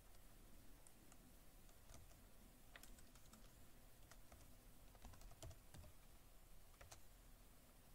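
Faint, irregular keystrokes on a computer keyboard, a few scattered clicks at a time, over near-silent room tone.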